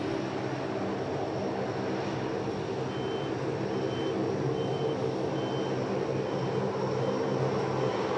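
Steady engine drone with a vehicle's reversing alarm beeping about once every 0.8 seconds, starting about three seconds in and growing fainter.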